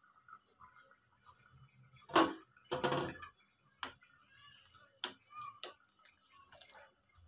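A glass pot lid is lifted off and set down with a knock and a clatter about two to three seconds in, then a wooden spoon stirs thick dal in an aluminium pot, giving a few light ticks against the pot.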